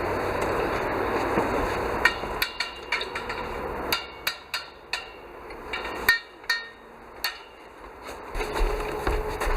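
Irregular sharp taps of a hand tool on a hard surface, several a second, starting about two seconds in and stopping shortly before the end. This is hardened adhesive being chipped away so that the sealant can be laid thick enough.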